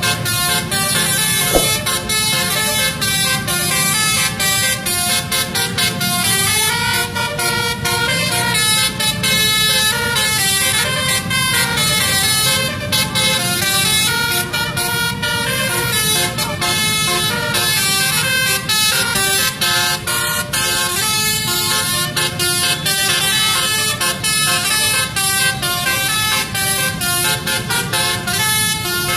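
Basuri telolet bus horn, a multi-trumpet air horn, playing a long winding melody: loud notes stepping up and down without a break.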